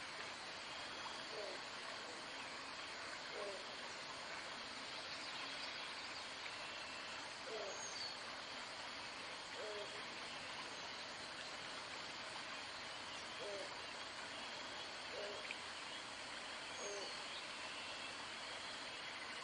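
Outdoor ambience: a steady hiss with a short, low hooting call repeated about seven times, every two to four seconds, and a few faint higher bird chirps.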